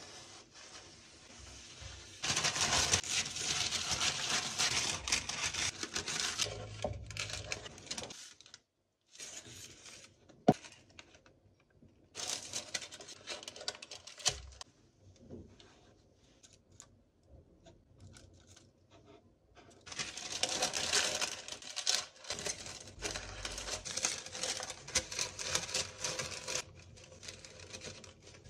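Baking paper rustling and crinkling as it is handled and laid into a plastic storage box, in several spells with quiet gaps between. There is a single sharp knock about ten seconds in.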